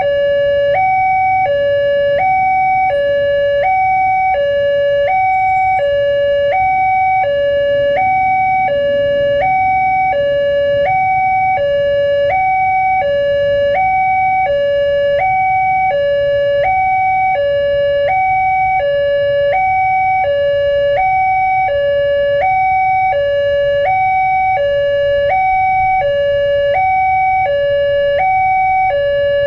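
Railway level-crossing warning alarm: an electronic two-tone chime alternating steadily between a lower and a higher note, about one pair every second and a half, sounding while the barriers are down to warn of an approaching train.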